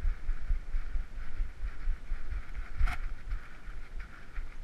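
Dull, irregular thumps of a GoPro Hero3 jostled on the harness of a trotting dog, knocking with each stride over a steady hiss, with one sharp click about three seconds in.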